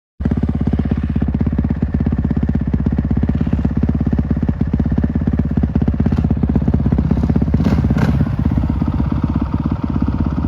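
450cc four-stroke single-cylinder dirt bike engine running steadily and loud, with a rapid even firing beat. It cuts in abruptly just after the start, and a few light clicks come through about six to eight seconds in.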